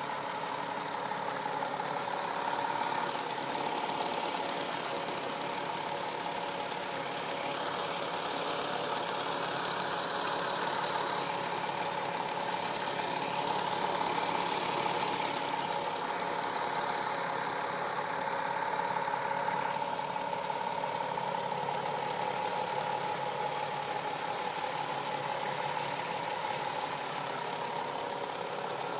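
Volkswagen Golf V6 4motion's 2.8 VR6 engine running steadily at operating temperature, with a small, rapid clacking noise.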